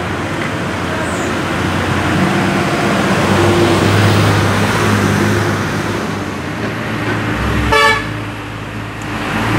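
Motor vehicle engine running close by on the road, with traffic noise, and a short horn toot near the end.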